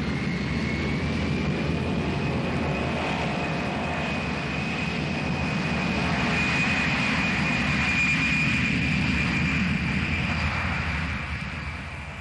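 Jet aircraft engines running: a low rumble under a high, thin turbine whine that rises slightly and then holds. It swells in the middle and fades away near the end, as a jet passing by would.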